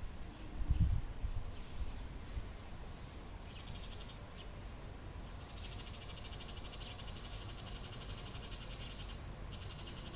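Bull-headed shrike giving its autumn high call (takanaki), the territorial call. A short burst comes about three and a half seconds in. A long, rapid, harsh chattering series follows from about five and a half seconds, breaks off briefly near the end and starts again. A brief low rumble comes in the first second.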